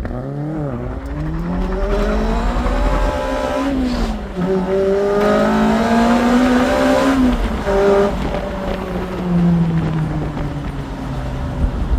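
Toyota MR2 Mk3 engine accelerating hard. It rises in pitch, drops sharply about four seconds in as it shifts up a gear, rises again, then eases off near the end.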